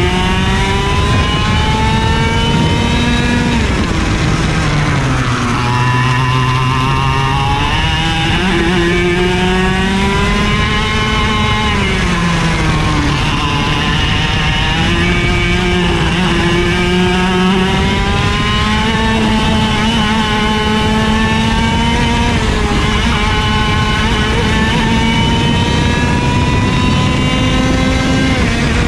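IAME KA100 100cc two-stroke kart engine at full race pace, heard from the driver's seat, its revs climbing steadily on the straights and dropping sharply for the corners several times.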